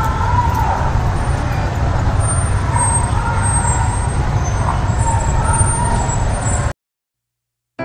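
Loud outdoor street noise with a heavy low rumble and faint wavering tones above it. It cuts off abruptly about a second before the end.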